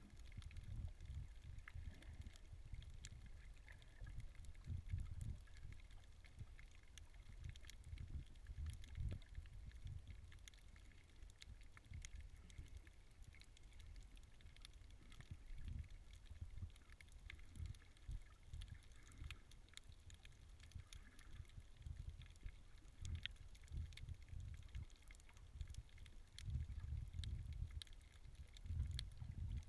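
Muffled underwater sound picked up by a camera in its waterproof housing: a faint, uneven low rumble of water moving around the housing as the snorkeler swims, with faint scattered clicks throughout.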